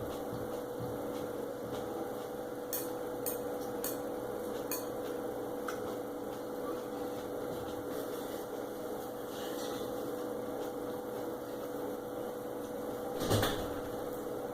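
Steady background hum with a few light clicks from eating and cutlery, and a single louder thump near the end: a door closing elsewhere in the house.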